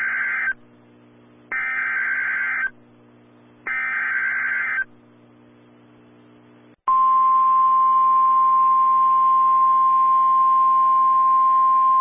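Emergency Alert System SAME header: three roughly one-second bursts of buzzy digital data noise about a second apart, each marking the start of a new alert. About seven seconds in, the steady single-pitch NOAA Weather Radio warning alarm tone comes in loud and holds. A low hum sits underneath in the gaps.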